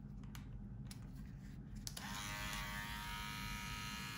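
Handheld rotary tool fitted with a felt polishing ball: a few light clicks as the bit is handled, then the small motor switches on about two seconds in and runs at a steady whine.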